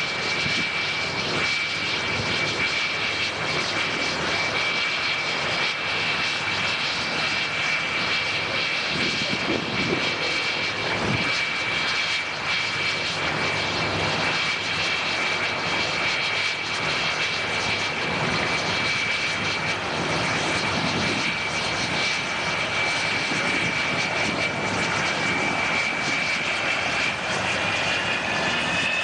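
Engines of a four-engined propeller airliner running steadily, with a high whine over the engine noise that rises in pitch near the end.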